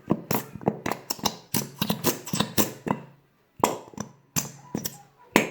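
Squeeze bottle of PVA glue sputtering as air and glue are forced out of its nozzle: a rapid string of short squelching, pitched blurts, in two spells with a brief pause between them. It sounds like a pig.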